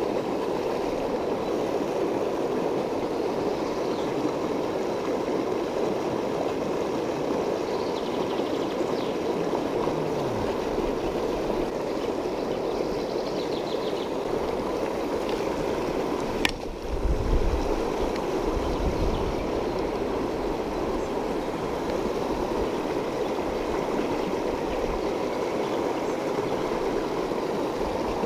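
Steady rushing of a shallow river running over stones. A sharp click comes a little past the middle, followed by a few low bumps.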